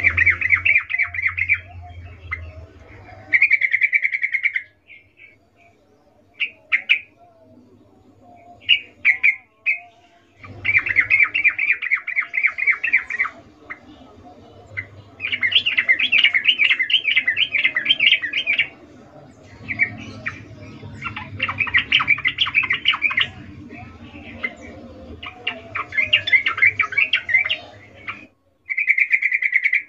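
Female yellow-vented bulbul (trucukan) calling in bursts of rapid chattering notes, about seven bursts of one to three seconds each with a few short single notes between. It is the female's breeding-season call to males (suara birahi ngecuplik).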